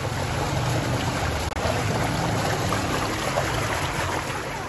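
Water rushing through a concrete drainage channel: a steady hiss with a low rumble underneath, broken by a momentary dropout about a second and a half in.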